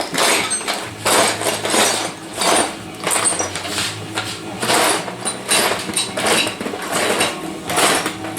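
A tool working on sheet metal in a rhythmic series of rasping strokes, about three every two seconds, over a low steady motor hum.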